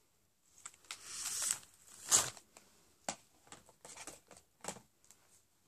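Rustling and handling noise with several sharp clicks as mascara tubes and packaging are put down and picked up. The loudest click comes about two seconds in, followed by a few shorter clicks and scrapes.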